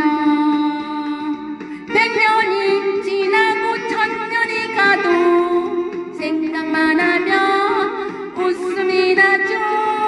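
A woman singing a Korean-language song over instrumental backing music.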